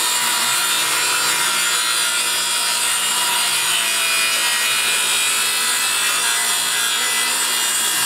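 Electric circular saw running steadily under load, its blade cutting lengthwise through a stack of plywood panels: a continuous whine mixed with the noise of the blade in the wood.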